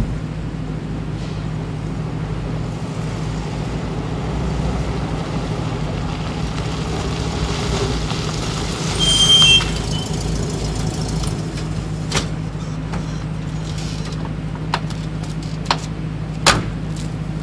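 UAZ-452 van driving up over a steady engine hum, then stopping with a short burst of noise and a squeal about nine seconds in. A few sharp clicks and knocks of its door follow near the end.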